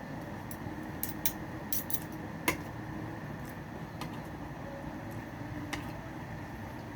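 Eating sounds at a meal: a few light, sharp clicks and clinks of utensils and mouth, scattered irregularly, over a steady low background noise.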